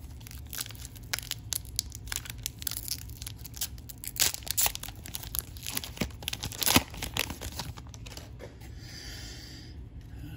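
Foil trading-card pack wrapper crinkling and tearing as it is pulled open by hand: a dense run of sharp crackles, loudest about two-thirds through, easing off near the end.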